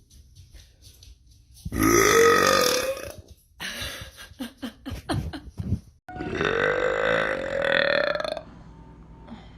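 Two long, loud burps by women. The first, about two seconds in, rises in pitch. The second, after a cut about six seconds in, is a steadier drawn-out belch lasting over two seconds.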